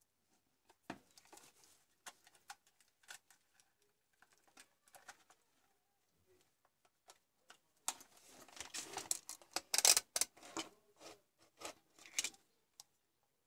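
Faint, scattered clicks and light knocks of small plastic and electronic parts being handled, growing into a denser run of handling noise from about eight seconds in for roughly four seconds: a mouse circuit board and a multimeter being picked up and moved.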